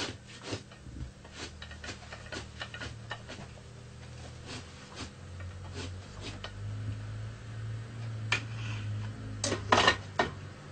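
Hand scraper working a sheepskin stretched over a wooden beam: short scraping strokes, quick and irregular at first, then sparser, with a few louder strokes near the end.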